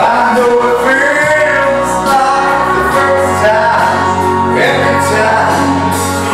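A man singing through a handheld microphone over backing music, his voice sliding between long held notes, with the bass line shifting to a new note about halfway through.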